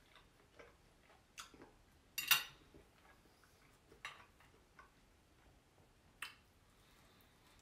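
Knife and fork clinking and scraping on a dinner plate of roast pork and fries: a few short clicks, with one louder, longer clatter about two seconds in.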